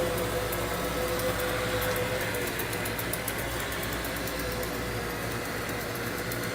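iLife A4S robot vacuum cleaner running, a steady whir of its motor and brushes with a held mid-pitched tone and a light rapid ticking over it.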